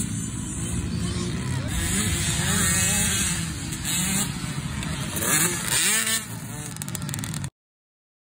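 Small youth dirt bike engines running and revving up and down as they race around the track. The sound cuts off abruptly to silence about seven and a half seconds in.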